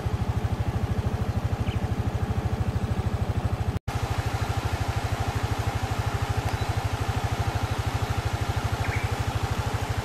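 An engine running steadily at idle, a regular low throb of about ten pulses a second; the sound breaks off for an instant a little under four seconds in.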